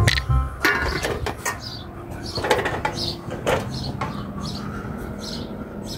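Several sharp knocks and clatters in the first second and a half, then a few short bird chirps over a faint steady hum.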